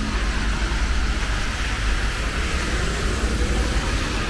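Steady city traffic on rain-wet streets: an even tyre hiss over a low rumble.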